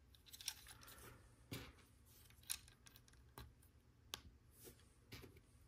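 Faint, irregular clicks of plastic LEGO Technic pieces being handled and pinned into an assembly, about seven small snaps and taps.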